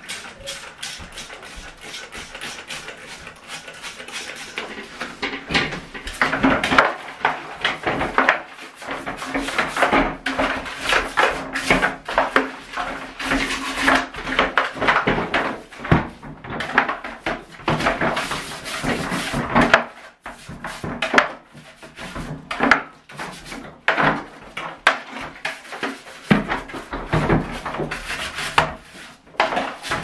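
Hands scrubbing and handling a Henry vacuum cleaner's plastic drum in a bathtub: a busy run of irregular knocks, rubs and plastic clatter against the tub.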